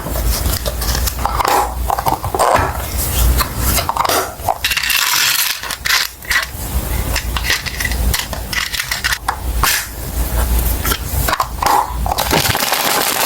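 Small plastic items and packaging handled close up: crinkling, clicks and clinks, over a low steady rumble.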